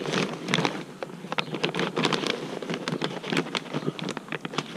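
Plastic sack crinkling and rustling in gloved hands while sawdust is shaken out of it into a tub of wet paper pulp, an irregular crackle of many small clicks.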